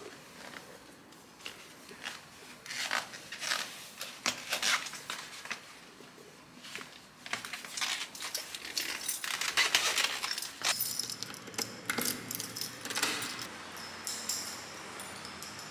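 Scattered scuffs, rustles and light clicks of sneakers being put on and stepped in on a tiled floor, then shoes walking on tile. The sounds are sparse at first and grow busier and louder in the second half.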